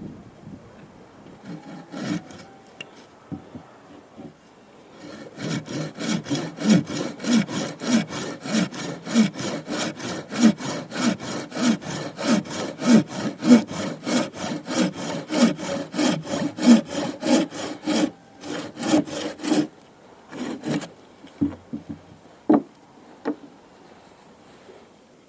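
A hand tool worked rapidly back and forth, about two to three strokes a second, each stroke with a brief falling squeak. The strokes start about five seconds in and stop about twenty seconds in, followed by a few scattered clicks and knocks.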